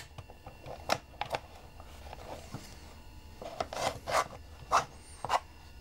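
Toshiba floppy drive being handled and slid into its housing: light scraping and rubbing of the parts against each other, with scattered sharp clicks, a cluster of them in the second half.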